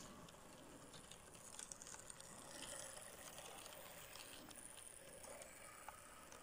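Märklin 37770 H0 model railcar running past on the track: a faint whir with scattered light clicks as it rolls by.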